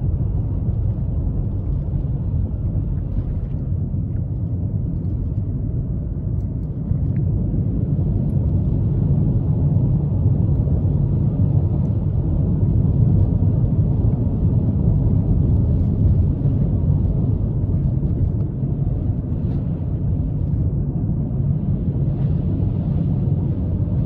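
Steady low rumble of road and tyre noise with the engine running, heard inside the cabin of a Suzuki Kizashi on Michelin X-Ice3+ studless winter tyres. It grows a little louder about seven seconds in.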